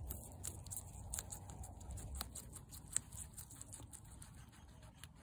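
Guinea pig biting into and chewing a grape: quick, irregular crunching clicks, with one sharper click about three seconds in.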